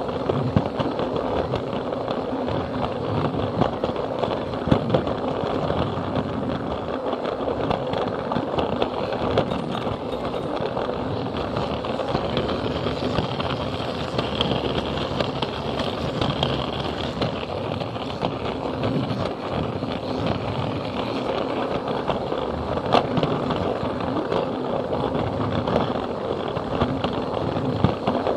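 Plarail toy train running along plastic track, picked up by a camera car riding on the train: a steady rattling rumble from the battery motor and plastic wheels, with irregular sharp clicks.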